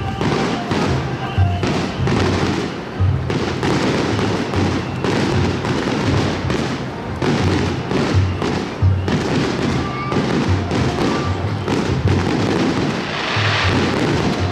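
Aerial fireworks going off in quick succession, sharp bursts and crackling, over a large taiko drum beating a steady slow rhythm of about three beats every two seconds.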